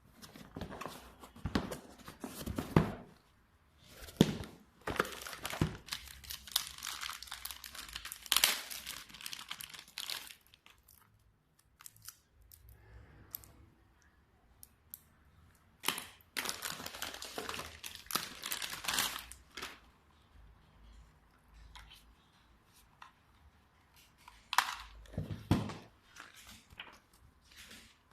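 Packaging material being handled: wrapping crinkling and rustling in several bursts a few seconds long, with occasional knocks and clicks, and quiet pauses between.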